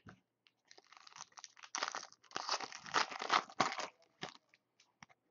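Foil wrapper of a basketball trading-card pack being torn open and crinkled by hand, loudest in the middle, then a few light clicks as the handling stops.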